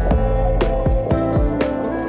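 Background music with a steady beat about once a second, held notes and short falling bass notes.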